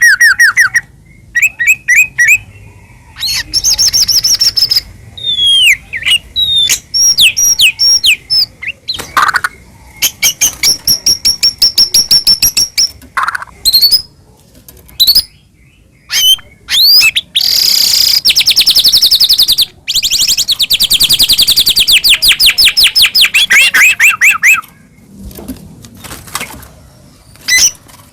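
White-rumped shama (murai batu) singing loudly in full song: a varied string of whistled glides and trills, broken by long, fast runs of rapidly repeated notes.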